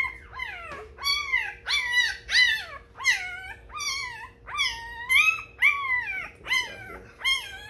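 One-week-old XL American Bully puppy crying: a string of short high cries, about two a second, each rising then falling in pitch. The newborn pup is fussing at being handled.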